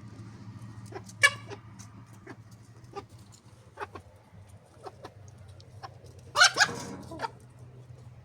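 Rooster giving short, sharp sneezes and clucks: a strong one about a second in, several smaller ones through the middle, and the loudest, a quick pair, near the end. A steady low hum runs underneath.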